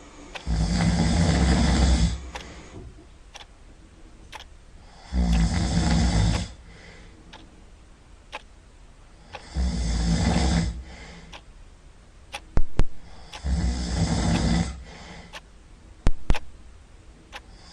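Loud snoring: four long snores at an even pace, about one every four seconds. A few sharp clicks sound between the third and fourth snores and again after the fourth.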